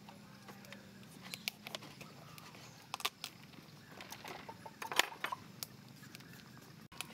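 Kitchen knife peeling and slicing the skin off a green fruit: irregular short scrapes and clicks of the blade, the sharpest about five seconds in. A faint low hum sits underneath and fades out after about two seconds.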